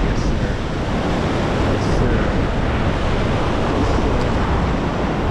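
Ocean surf breaking and washing around pier pilings in a steady rush, with wind buffeting the microphone in a low rumble.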